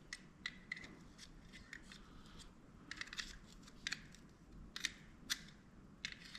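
Scattered light clicks and taps of small plastic and metal camera parts being handled, irregular, with a few louder clicks in the second half.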